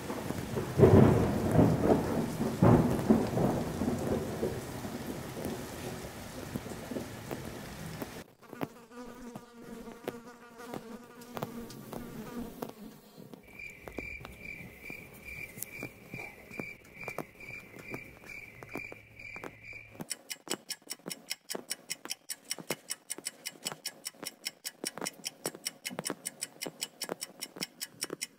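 A string of added sound effects: a thunderclap with rain for the first eight seconds or so, then faint sustained tones, then a run of high beeps about two a second, and in the last third a clock ticking fast and evenly.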